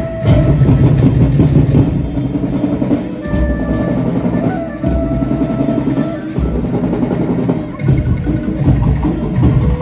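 Loud festival dance music driven by heavy drumming, with a few sustained melody notes held over the beat.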